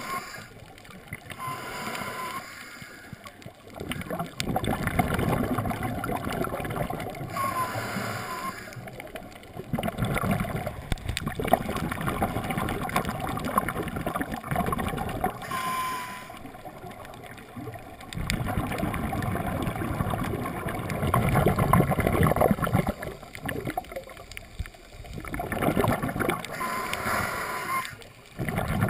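Scuba diver breathing through a regulator underwater: long bursts of exhaled bubbles gurgling every several seconds, with quieter gaps and a brief whistling tone between them.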